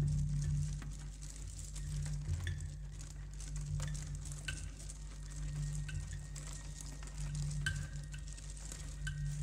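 Quiet passage of contemporary music for percussion and tape playback: a low steady drone under a faint crackling hiss, with sparse short high ticks and chirps about once a second.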